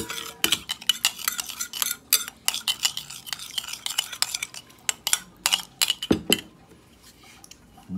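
Metal spoon stirring a liquid marinade with chopped garlic in a ceramic bowl: rapid, repeated clinks and scrapes of the spoon against the bowl. The stirring stops near the end.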